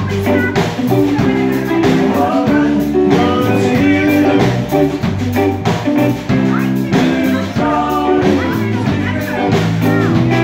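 Live band playing: electric guitar, electric bass and drum kit, with a steady beat.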